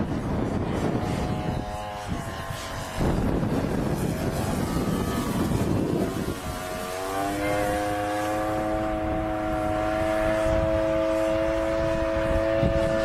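An RC model airplane's engine running. Its note comes through in snatches over wind noise on the microphone, then about halfway in rises a little and settles into a steady drone.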